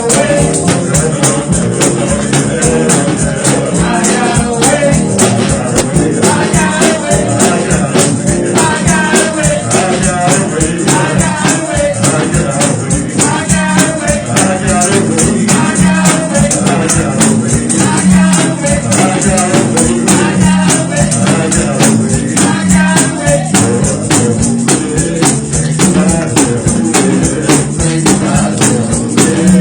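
Gospel music with singing over a steady, quick tambourine beat.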